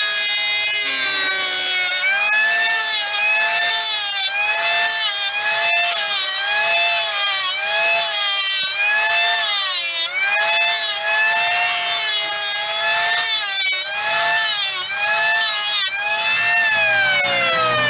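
Corded electric hand planer running and shaving a wooden board, its high whine dipping in pitch each time the blades bite into the wood, about once a second, then winding down as it is switched off near the end.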